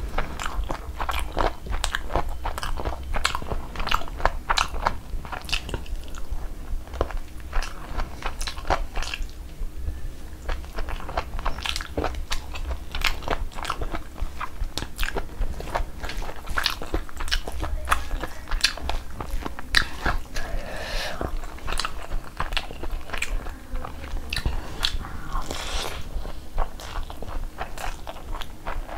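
Close-miked eating sounds: a person chewing mouthfuls of jeera rice and butter chicken eaten by hand, with frequent sharp mouth clicks, over a steady low hum.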